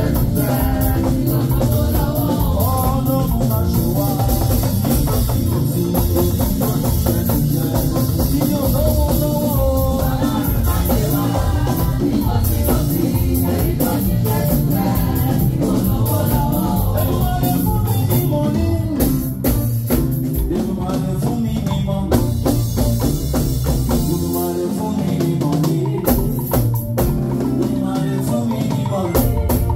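Church praise music with a drum kit, other instruments and singing voices. The deep bass drops out for a few seconds near the end.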